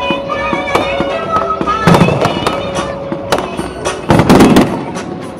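Fireworks going off in rapid crackles and bangs, with louder bursts about two seconds in and again about four seconds in.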